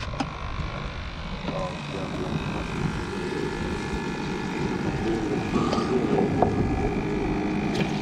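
Steady motor hum with several steady pitched tones, over wind rumbling on the microphone, broken by a few light clicks and knocks.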